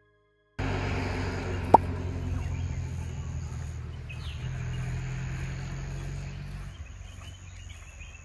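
A vehicle engine's low hum by a roadside, fading steadily, with faint bird chirps and one short sharp click about a second in.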